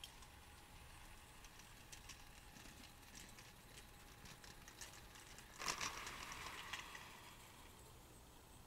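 Faint, irregular clicking of a garden-scale model train's wheels running over the track, with a brief louder rush of noise about six seconds in.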